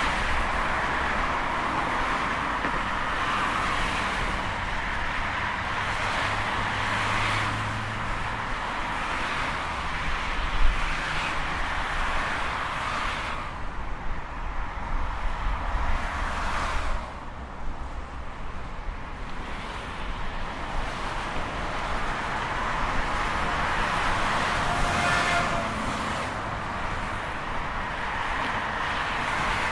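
Busy motorway traffic: a continuous wash of tyre and engine noise as cars pass in steady succession. It thins briefly about halfway through before building again.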